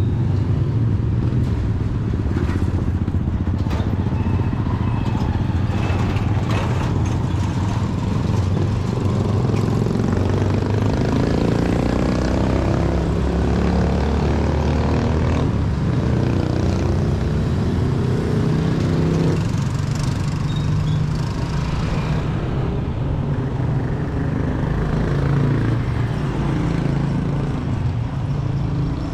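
Motor vehicle traffic running close by with a steady low rumble. Around the middle, one engine rises in pitch for several seconds as it speeds up, then drops away suddenly.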